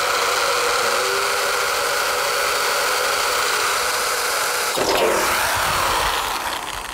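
Electric drill boring into a thin metal dish: a steady whining, grinding run of the bit against the metal. About five seconds in the sound shifts briefly, then it dies away near the end.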